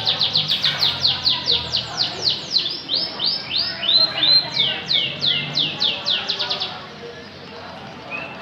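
Canary singing: a fast trill of whistled notes, each sweeping downward in pitch, about seven a second, broken by a short phrase of rising notes partway through. The song stops near the end.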